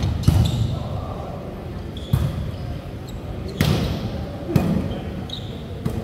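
Volleyball being struck during a rally: about five sharp slaps of hands on the ball, a second or so apart, echoing in a large gym hall, over players' voices in the background.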